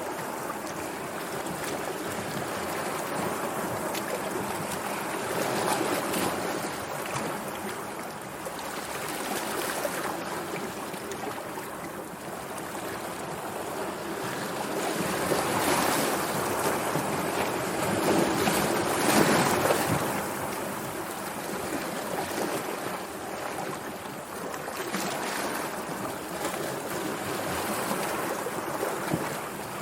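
Sea waves washing on a shore, a continuous rushing wash that swells and ebbs every few seconds, loudest around the middle.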